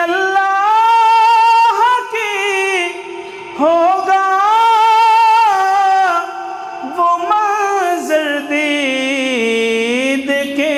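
Urdu naat sung in long, held, wavering vocal notes between lines of the lyrics, with no instruments or percussion.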